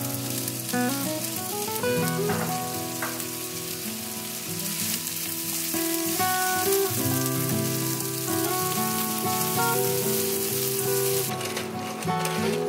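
Rice, onion and grated zucchini frying in oil in a pan, a steady sizzle as it is stirred with a wooden spoon, over soft background music. Near the end the even sizzle breaks up into scattered crackles.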